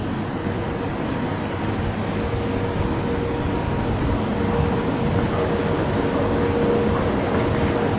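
Underground MRT station ambience: a steady rumble with a low mechanical hum, growing gradually louder.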